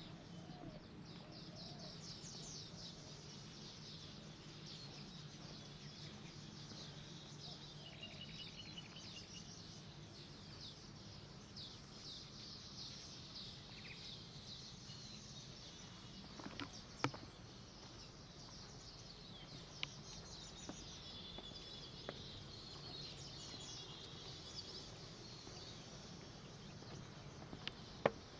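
Many birds chirping and twittering in quick, high repeated calls, over a faint steady low hum. A few sharp clicks stand out, one a little past halfway and a couple near the end.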